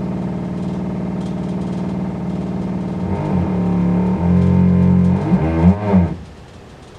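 Loud, steady droning hum from the shower plumbing upstairs while it is being worked on. Its pitch wavers and bends about halfway through, and it stops suddenly about six seconds in.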